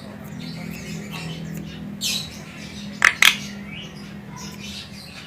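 Javan myna calling: soft chattering, a harsh call about two seconds in, then two sharp, loud squawks in quick succession a second later, over a faint steady low hum.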